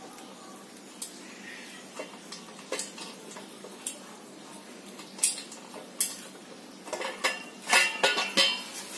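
Scattered metal clinks and knocks from a stainless-steel exhaust pipe and its silencer being handled and fitted together, with a quicker, louder run of knocks near the end.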